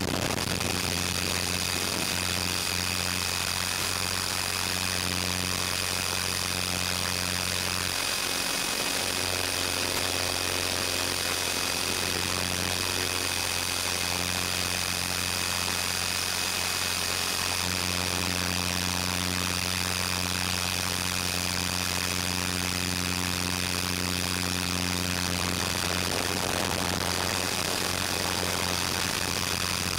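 450-size electric RC helicopter in flight, heard from on board: a steady high whine from its brushless motor and drivetrain over a low, even rotor hum.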